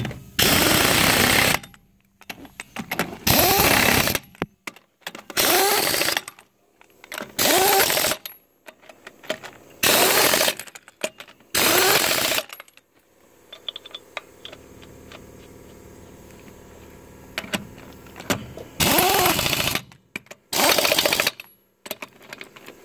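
Pneumatic impact wrench hammering lug nuts tight on a truck wheel, in about eight bursts of a second or so each, with a pause of several seconds after the sixth.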